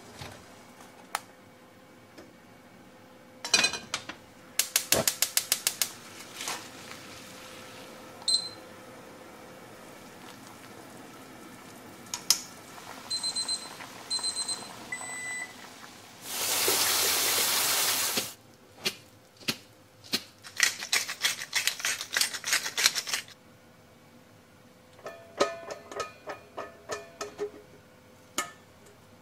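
Kitchen sounds over soft background music: a gas hob's igniter clicking rapidly, a few short electronic beeps, a steady rush of water poured off for about two seconds, and then more runs of rapid clicking and beeping.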